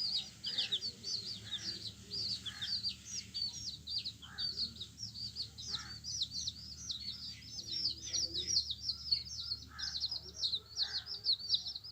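Many domestic chicks peeping together in a dense, continuous chorus of short, high, downward-sliding peeps, several a second.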